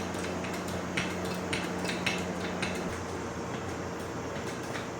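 Metallic clicks at irregular spacing, roughly one or two a second, as a hand-worked tool presses warped floorboards together to close a gap between them. A steady low hum runs underneath until about three seconds in.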